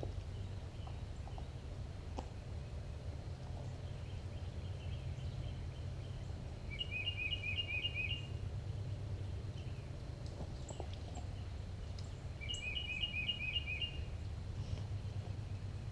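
A songbird sings a short, rapid phrase of about five or six repeated notes, twice, about six seconds apart, over a steady low background rumble.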